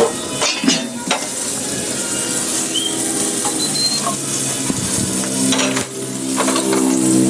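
Food sizzling in a hot pan while a utensil stirs it and knocks against the pan a few times.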